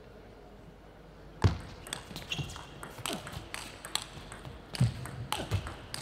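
Celluloid-style table tennis ball clicking off rackets and the table in a rally, a string of sharp, quick knocks at irregular spacing that starts about a second and a half in, after a quiet pause.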